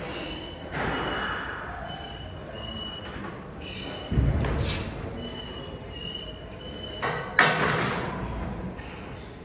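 Weight-room noise: a heavy thud about four seconds in and a louder, sharper clank of metal gym equipment about seven and a half seconds in, each dying away over a second. Faint short high-pitched notes come and go throughout.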